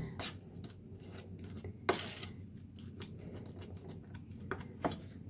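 Steel spoon scraping and tapping against a stainless steel bowl while mixing mashed potato with spices and oil. Faint, with a couple of louder clinks, one about two seconds in and one near the end.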